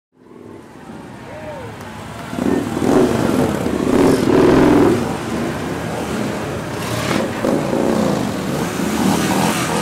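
A column of cruiser motorcycles riding slowly past, their engines running and revving, fading in at first and growing louder about two and a half seconds in.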